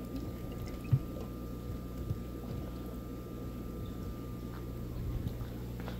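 Steady hum of fish-tank pumps with water running and trickling, and a light knock about a second in from a clear plastic food tub handled on a wooden workbench.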